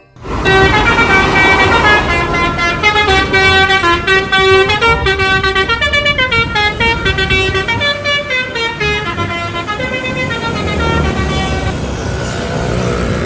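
Bus telolet horn, a multi-tone Basuri horn, playing a quick tune of changing notes for about ten seconds over the low running of the bus engine. Near the end the tune stops, leaving engine and road noise.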